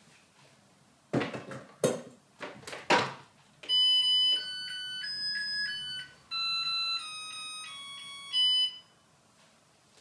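An inner pot is set into an electric rice cooker and the lid is shut with a few knocks and clicks, then the rice cooker plays its electronic start-up melody, a tune of beeping notes lasting about five seconds, as cooking begins.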